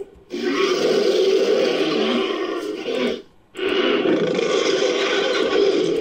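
Fictional Allospinosaurus roar sound effect, edited together from Allosaurus, Spinosaurus and stock monster roar recordings. Two long roars of about three seconds each, with a short break between them near the middle.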